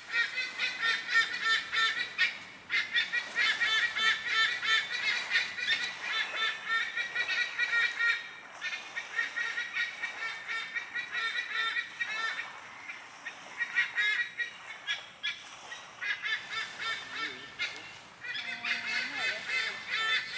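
White-bellied sea eagles calling in a noisy chorus: loud honking notes repeated rapidly, coming in bouts several seconds long with short pauses between.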